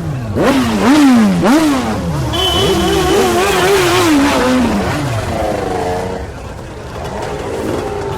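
Motorcycle engine revving. The pitch climbs and drops back twice in quick succession, holds high with a slight waver, then falls away to a lower, quieter running sound near the end.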